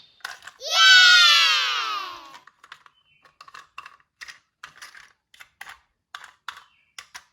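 A pitched tone that glides steadily downward for under two seconds, then a run of light, dry clicks at about two a second, like typing.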